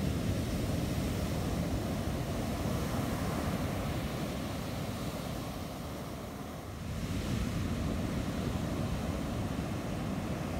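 Pacific surf breaking and washing up a sand beach in a steady rush, with wind rumbling on the microphone. The sound eases briefly a little past the middle, then swells again.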